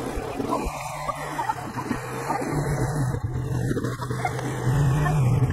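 ATV engine running at low speed as the quad creeps over a rough woodland trail: a steady low hum with scattered knocks.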